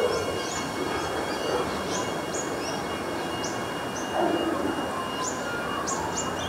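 Adelaide Metro 4000 class electric train pulling away and receding: a steady rumble of wheels on rail with a thin, steady high whine over it.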